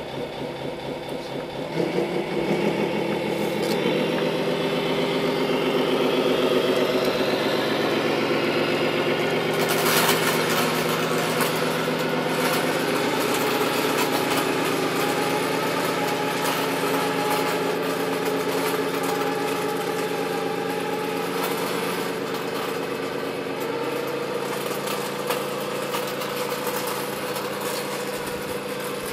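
Tamiya Scania R620 radio-controlled model truck driving and pushing a snowplough blade through snow, with a steady engine-like hum. The pitch steps up about two and four seconds in and drops back near the end.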